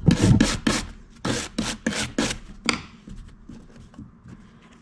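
A small brass wire brush scrubbing a variable-vane turbo's thin metal ring on a paper shop towel, about three quick scraping strokes a second, loosening degreaser-softened black grime. After about three seconds the scrubbing stops and only faint light clicks of handling remain.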